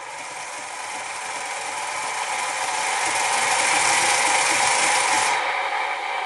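TBS Mini RC sound module playing a loud, hissing, noise-like sound through its speaker. It swells over about four seconds, its hiss cuts off suddenly about five seconds in, and the rest fades. It is a faulty output that the owner cannot account for, not the sound the module was set up to play.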